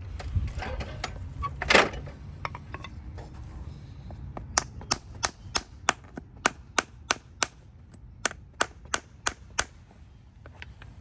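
Hammer striking in a steady run of sharp taps, about three a second, with a short pause midway, as a farrier works a hoof. A single louder scraping crunch comes about two seconds in, before the taps begin.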